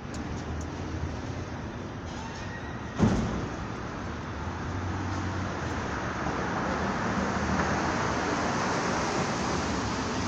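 Road traffic rumbling in a road tunnel, with one sudden loud bang about three seconds in. The rumble grows louder over the second half.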